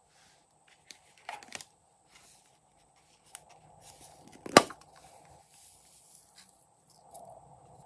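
Small plastic slime containers handled by hand: a few light clicks and knocks, with one sharp plastic click about four and a half seconds in.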